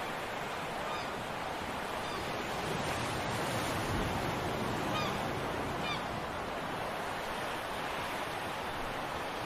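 Sea waves washing on a rocky shore, a steady rushing noise, with a few short, high bird calls: about a second in, again near two seconds, and twice around five to six seconds.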